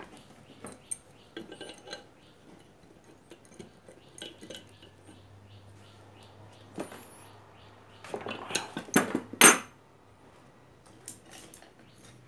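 Small metal parts and a hand tool clicking and clinking as an electric iron is taken apart, with a louder cluster of knocks and rattles about eight to nine and a half seconds in.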